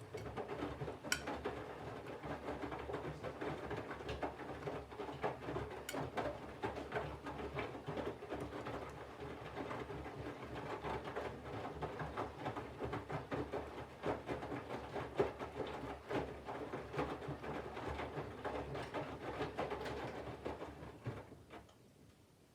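Candy front-loading washing machine in its main wash: the drum turns for about twenty seconds, with wet laundry and water sloshing and many soft knocks, then stops about a second before the end.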